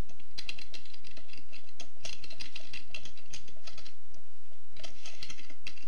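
Typing on a computer keyboard: a quick run of key clicks, with a pause of about a second near the fourth second before the typing resumes. A steady low hum runs underneath.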